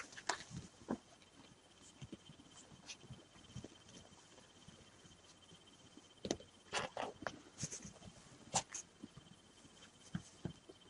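Three-day-old Rafeiro do Alentejo puppies shuffling and crawling on a cotton blanket: faint rustling and soft scratching of fabric, with a few louder rustles a little past the middle.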